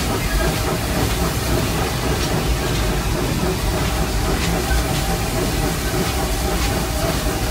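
Vulcan Iron Works steam locomotive running slowly along the track, heard from the cab: a steady rumble and hiss of steam, with occasional light clicks.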